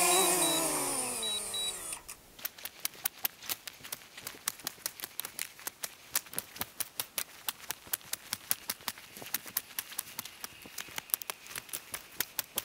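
A quadcopter drone's propeller whine, falling in pitch and fading as it flies away, gives way about two seconds in to a campfire crackling with sharp, irregular pops, several a second.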